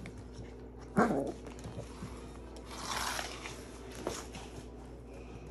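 A Portidoodle puppy (Portuguese Water Dog × Poodle, about six and a half weeks old) gives one short bark about a second in, falling in pitch. Softer scuffling follows as the puppies play.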